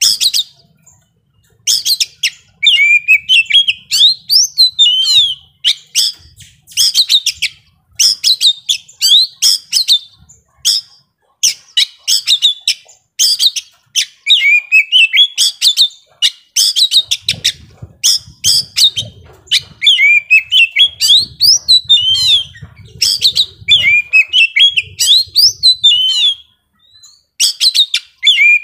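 Young oriental magpie-robin (kacer) singing loudly: rapid, varied strings of whistles, chatters and sliding notes in quick bursts, with a few short pauses between phrases.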